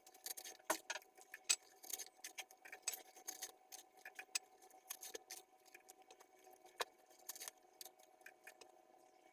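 Scattered light clicks and crackles, irregular and a few a second, from handling food and kitchen utensils, over a faint steady hum.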